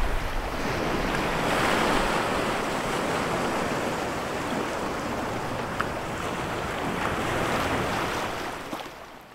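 Ocean waves washing in a steady rush, fading out near the end.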